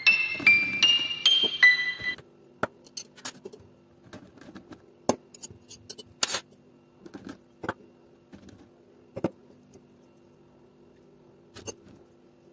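Glasses ringing in a quick run of clear pitched notes for about two seconds, each note starting with a tap. Then come scattered single clinks of a metal spoon against glass and water beads, about a second or two apart, over a faint steady hum.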